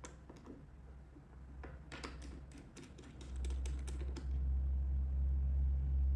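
A run of light sharp clicks and taps, then a loud low steady machine hum that starts about three seconds in and keeps going.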